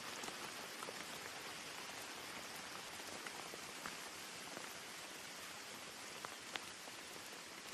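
Steady rain: an even hiss with scattered single drops ticking now and then.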